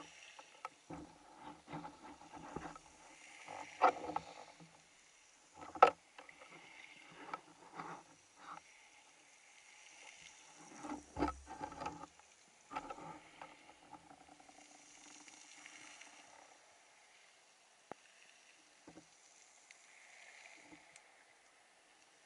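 Underwater camera sound: irregular knocks, scrapes and rustles as a gloved hand brushes and bumps the camera housing against the rocky seabed, sharpest about four and six seconds in and in a cluster around eleven to twelve seconds, then only a faint hiss of the water.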